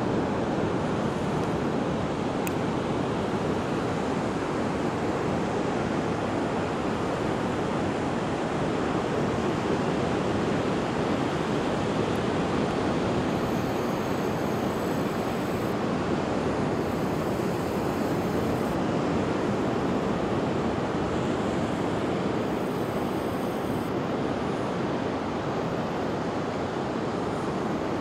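Steady surf washing onto a beach, mixed with wind, as one even, unbroken rush with no distinct breaks between waves.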